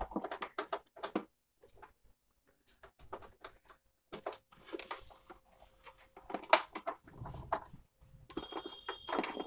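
Scattered clicks, taps and rustles as a USB cable's plug is handled and pushed against the rear port of an HP LaserJet Pro P1108 printer's plastic case, with one sharper click about six and a half seconds in.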